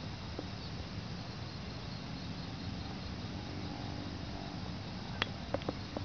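Steady outdoor background noise with faint, high, short chirps, and a few sharp clicks a little over five seconds in.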